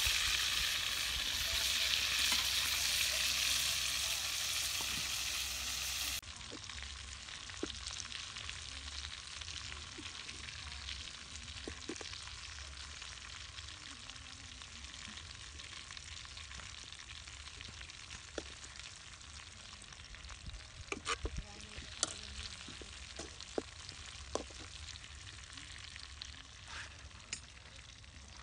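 Chicken drumsticks sizzling as they shallow-fry in oil in a steel wok. The sizzle is loud at first and drops sharply about six seconds in to a quieter hiss. Later come scattered sharp clicks of metal tongs against the wok, bunched together a little past two-thirds of the way through.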